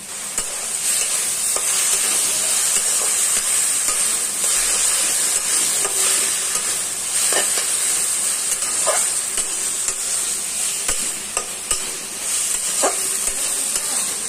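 Grated vegetables frying in a wok with a steady high sizzle, stirred with a spatula, with a few short scrapes of the spatula against the pan.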